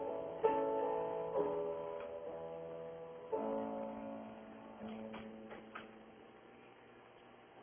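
Soft instrumental music playing in the room: a few held chords struck one after another, each ringing and dying away, growing quieter toward the end, with a few faint clicks about two-thirds of the way in. It sounds thin, heard through a home security camera's microphone.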